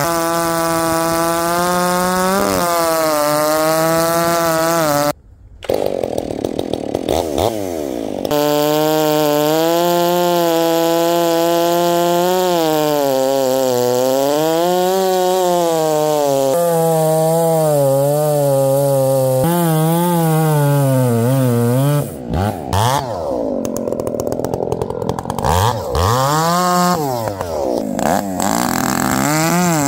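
Husqvarna 371XP and Stihl MS 461 two-stroke chainsaws with modified mufflers cutting through big black cherry logs in short back-to-back clips. The engine note keeps sagging as the chain loads up in the cut and climbing back, with a brief break about five seconds in and a stretch of free revving up and down near the end.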